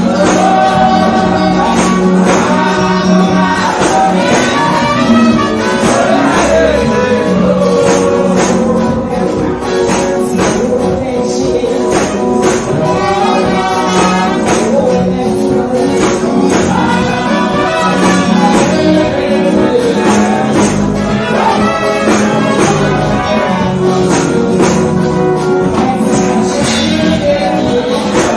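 Live Ghanaian gospel music: a woman singing into a microphone over band accompaniment with a steady dance beat, about two strokes a second.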